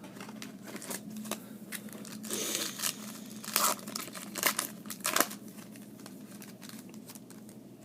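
A trading-card pack wrapper being torn open and crinkled, with a cluster of sharp crackles about two to five seconds in, then lighter rustling as the cards are handled.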